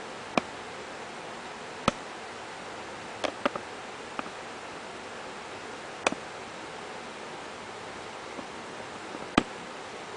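Steady hiss with about seven sharp clicks at irregular spacing, the loudest near the end.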